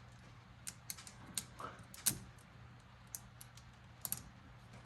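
Light, irregular clicks and taps of hands working small plastic fuel-injector connector clips and parts on an engine, about a dozen scattered ticks, with a faint steady low hum underneath.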